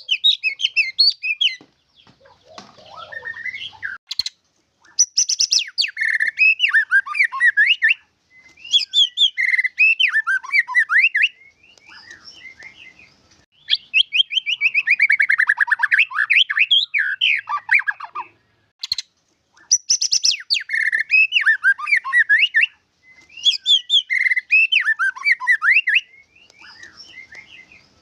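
White-rumped shama (murai batu) singing: repeated bursts of fast, varied whistled phrases, each a couple of seconds long with short pauses between, mixing in sharp clicks and a long falling note partway through. It is the full song with 'isian' fill-in phrases that keepers prize.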